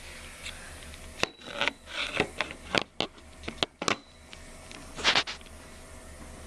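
A porcelain toilet tank lid being lifted and handled: a run of scrapes and clunks, with the loudest scrape about five seconds in.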